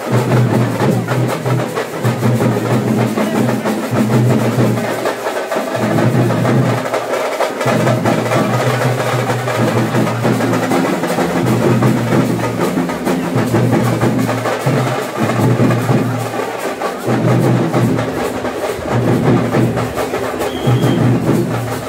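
Loud percussion music, many drums beating a fast, dense rhythm, with a low held tone that breaks off and comes back several times.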